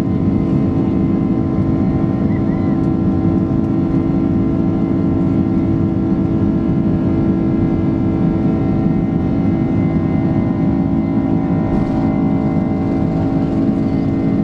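Steady drone of a Boeing 767-300's twin jet engines heard inside the cabin: a loud, even rush with several constant hum tones.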